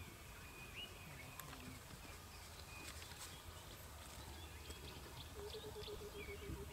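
Quiet outdoor ambience: a low steady rumble with a few faint short chirps and soft clicks. Near the end a rapid run of low pulsing calls begins.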